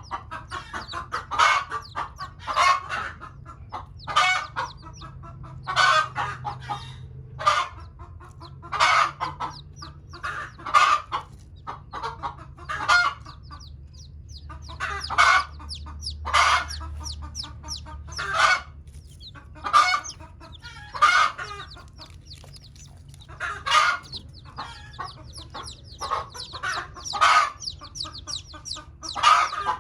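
A broody hen clucking in short repeated calls, one every second or two. Faint high peeping from newly hatched chicks runs underneath.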